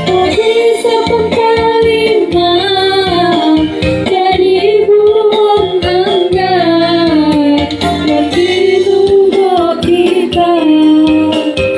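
A female voice singing a slow melody over a steady instrumental backing.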